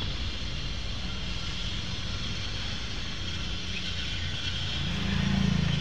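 Steady road-traffic hum coming in through the truck cab's open windows, with a vehicle passing by near the end, where the sound briefly swells.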